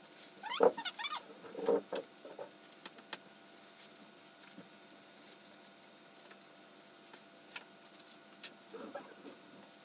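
Gloved hands kneading and rolling a soft castella-and-cream-cheese mixture into balls: soft squishing and rubbing, a few short squeaky pitched sounds in the first two seconds and again near the end, and scattered light clicks.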